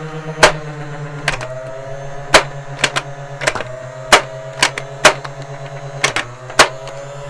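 Blaze Storm soft-bullet toy gun firing foam darts: about ten sharp plastic clicks at uneven spacing, one per shot, over a steady motor whirr.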